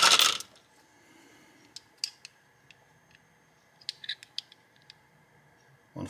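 Light, sharp metallic clicks and clinks from copper bullets and a steel digital caliper being handled during measuring: a few scattered ones, then a quick cluster about four seconds in.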